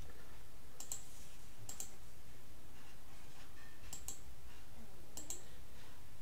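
Computer mouse clicking: four quick pairs of sharp clicks spread across a few seconds, over a steady low room hum.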